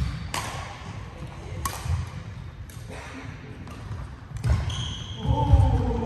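Badminton rally: several sharp racket hits on the shuttlecock, irregularly spaced, with footsteps thudding on the court floor. Near the end come short squeaks, likely shoes on the court, and voices.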